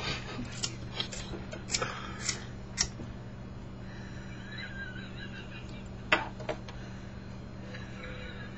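Cigarette lighter being struck several times, sharp clicks over the first three seconds before it catches, with two more clicks about six seconds in, over a steady low electrical hum.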